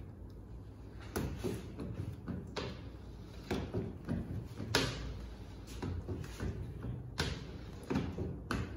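Squeegee and card tool strokes on a car window's glass while window tint film is laid, a series of short scraping swishes about once a second, over a steady low hum.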